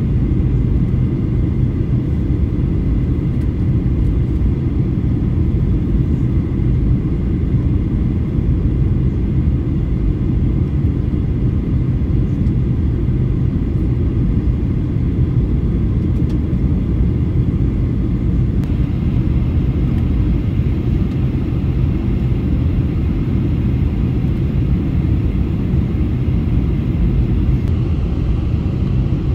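Steady cabin noise of a Boeing 737-800 in flight: an even, low rumble of airflow and its CFM56-7B turbofan engines.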